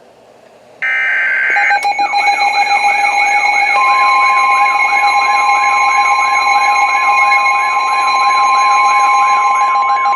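NOAA Weather Radio warning alert: a short burst of SAME digital header data about a second in, then an alarm that warbles up and down about three times a second over a steady tone. A second steady tone, the 1050 Hz warning alarm tone, joins about four seconds in, signalling that a warning, here a severe thunderstorm warning, is about to be read.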